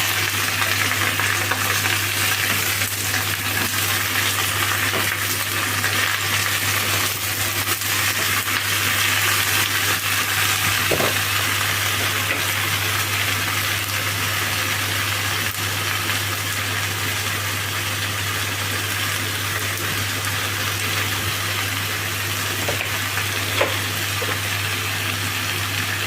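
Choy sum and garlic sizzling steadily as they stir-fry in a hot pan, with a couple of brief utensil clicks, over a steady low hum.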